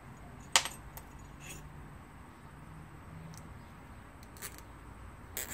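Small hardware clicking and tapping as a screw and washers are handled against a Peltier water chiller block: one sharp click about half a second in, then a few fainter clicks and taps.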